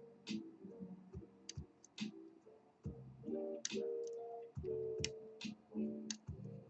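Small, irregular metallic clicks of a hook pick working the pins of a pin-tumbler lock under a tension wrench, over soft background music.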